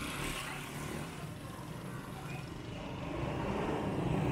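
Small motorcycle engines passing on a street over general traffic noise: one fades off early, and another grows louder as it approaches near the end.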